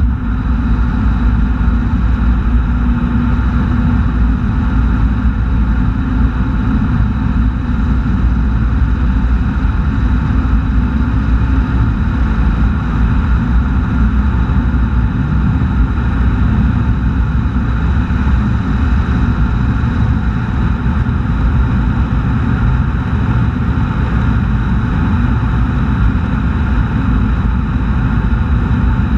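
Steady wind buffeting and road noise on a car-mounted camera held low near the pavement while the car drives at speed, mostly a deep rumble with no breaks.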